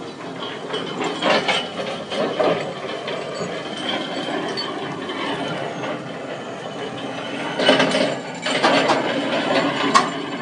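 Heavy mechanical clanking and scraping in irregular bursts, loudest about eight seconds in: a crawler excavator's steel tracks grinding against a metal guardrail and the road as the machine rocks off the rail.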